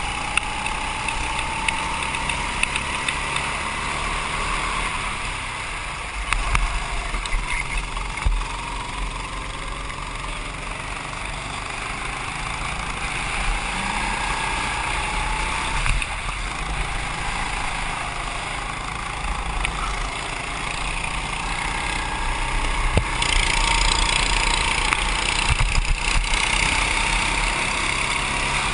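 Go-kart engine heard from on board the kart, its pitch climbing as the kart accelerates and dropping back as it lifts off, several times over, over a steady rush of road and wind noise. The noise grows louder in the last few seconds.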